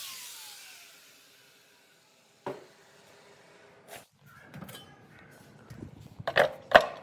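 A small high-speed electric motor winding down with a falling whine. Then come a few separate knocks and a burst of clattering hard parts, loudest near the end.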